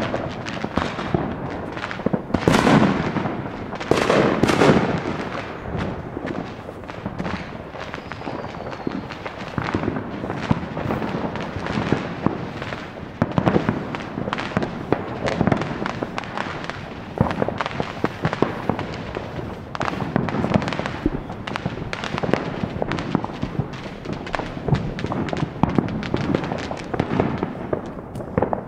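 Neighbourhood fireworks and firecrackers going off on all sides: a near-continuous crackle of pops and bangs, with the biggest booms about two and a half and four seconds in, each trailing off in a rumbling echo.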